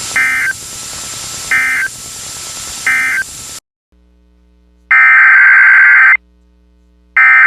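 Emergency Alert System SAME digital data bursts: three short warbling tone bursts about 1.3 s apart, the end-of-message code closing one alert. After a brief drop-out come two louder bursts over a second long each, the header code opening the next alert, with the second starting near the end.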